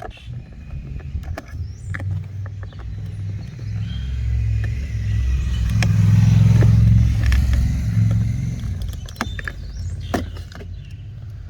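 A motor vehicle passing close by: a low rumble that swells to its loudest about six to seven seconds in, then fades. Small clicks and knocks of plastic door trim being handled are scattered through it.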